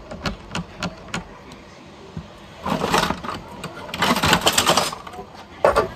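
Dishes being washed by hand: light clinks and knocks of plates and utensils in the first second or so, then two noisier stretches of about a second each as the dishes are scrubbed and rinsed.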